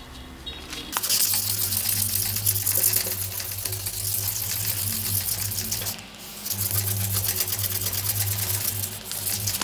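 Sandpaper rubbed quickly back and forth by hand over a Miyabi 5000MCD knife's handle and metal end ring, a dense rapid scratching that starts about a second in, breaks off briefly twice, and resumes.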